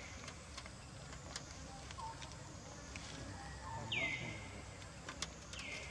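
A bird calling twice, each call a short whistle that slides down in pitch and then holds, over faint outdoor background noise with a few light ticks.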